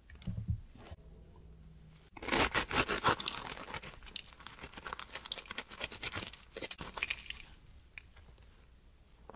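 A small knife cutting into the crisp, cookie-topped shell of a baked choux puff: a dense crackling crunch starts about two seconds in and is loudest at first. It fades out over the next few seconds.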